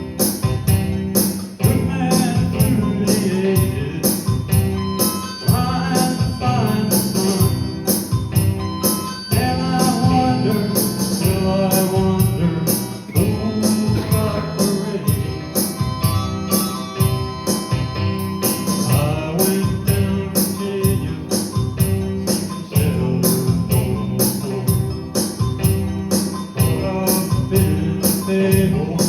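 A band playing a song with a singer, a tambourine shaking a steady beat about twice a second.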